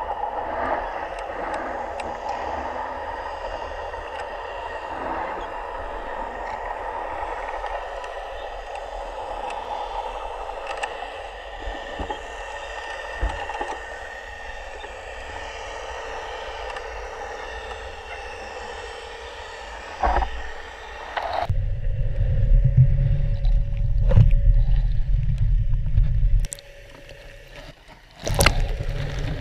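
Steady, muffled water noise picked up by a camera under the canal's surface, with a faint hum running through it. About two-thirds of the way through it cuts to a loud low rumble, and a few sharp knocks come near the end.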